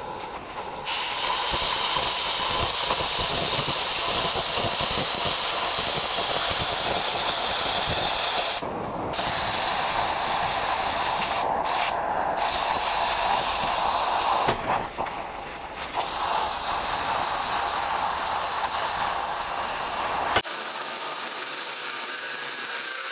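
Oxy-fuel cutting torch blowing a steady loud hiss as it cuts through steel plate, dipping briefly a few times. About 20 seconds in the hiss stops abruptly and a quieter angle grinder is heard working steel.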